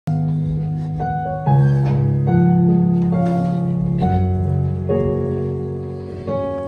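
Piano introduction to a slow gospel song: sustained chords over a low bass, changing about once a second, louder from about a second and a half in.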